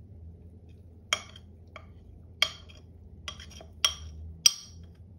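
Metal spoon clinking against a glass jar as it scrapes out thick sourdough starter. There are six sharp clinks at uneven intervals.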